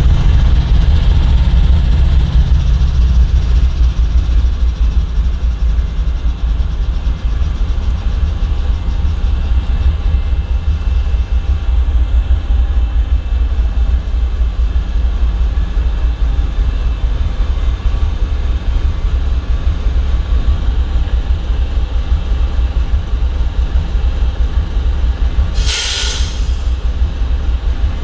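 A GE ES40DC diesel-electric locomotive's 12-cylinder GEVO diesel engine idling while the locomotive stands still, a steady deep hum. Near the end there is one loud hiss lasting about a second.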